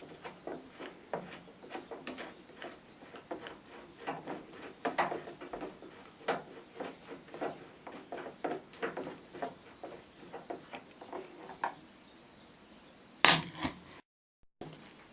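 Irregular light clicks and knocks of hard objects being handled, about two or three a second, then a single louder knock near the end.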